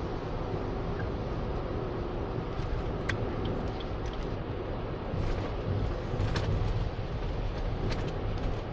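Steady road and engine noise heard from inside a car cruising along a highway, with a few faint ticks about three, six and eight seconds in.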